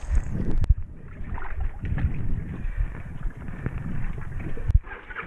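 1987 Honda FourTrax 250 ATV floating and driving itself through lake water on its spinning tires: water churning and splashing over the engine's low running. Two sharp knocks stand out, one under a second in and one near the end.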